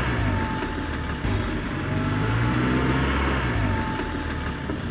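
Car engine revving sound, recorded rather than live, played for a ride-on toy car. Its pitch swells up and falls back twice, with a short break about a second in.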